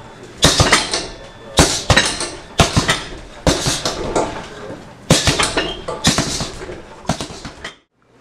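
Punches landing on a heavy bag: about a dozen sharp hits, many in quick pairs of two, each with a short rattle after it. The sound cuts off suddenly shortly before the end.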